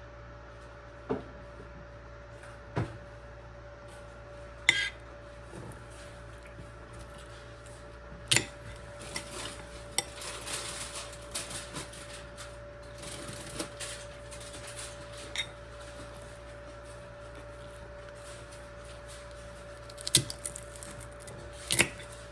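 Kitchen utensils knocking and clinking against dishes and pans: a handful of sharp separate knocks, with a few seconds of scraping and rattling in the middle. A steady faint hum runs underneath.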